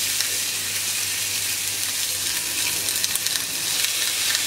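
Beef entrecôte steaks sizzling on a smoking-hot ridged grill pan: a steady hiss with small crackling pops, which grow busier as a second steak is pressed down near the end.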